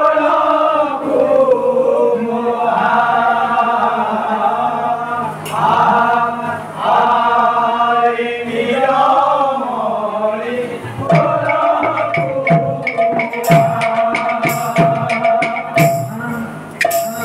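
Kirtan: a group of men singing a devotional chant with long, drawn-out notes. About eleven seconds in, the red barrel drums and other percussion come in with quick, regular strokes under the singing.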